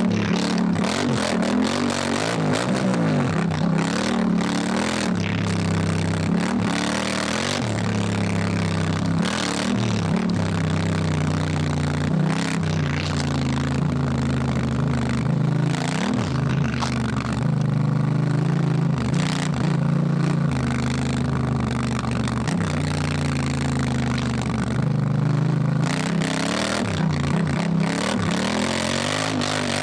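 Honda Africa Twin's parallel-twin engine pulling under way, its pitch rising and falling as the rider works the throttle through the gears. Wind and tyre noise run underneath, with scattered clatter from the loose surface.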